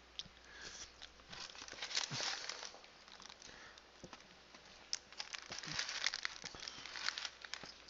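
Cardboard takeout box being handled, with faint crinkling rustles and scattered clicks in two stretches: from just after the start to under three seconds in, and again from about five seconds in.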